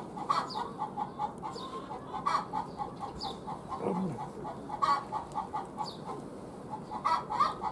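Birds calling in rapid runs of short, repeated notes, with one low falling call about four seconds in.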